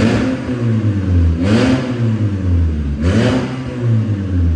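Volkswagen Golf 1.6 MSI's naturally aspirated four-cylinder engine revved in three quick blips about a second and a half apart, each rising and falling in pitch. The exhaust diffuser is open in place of the catalytic converter, giving the engine a nice little growl.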